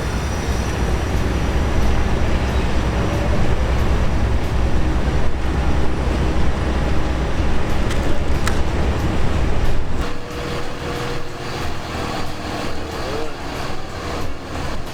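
Loud city traffic noise, a heavy low rumble of passing vehicles that drops away suddenly about ten seconds in, leaving lighter street noise.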